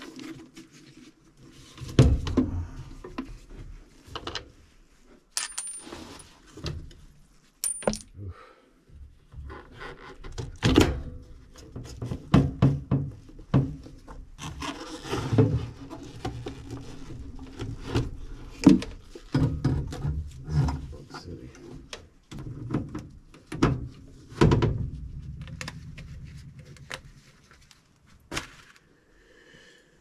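Irregular knocks, clunks and rattles of metal furnace parts being handled as a gas furnace's black blower housing is worked loose and lifted out of the cabinet.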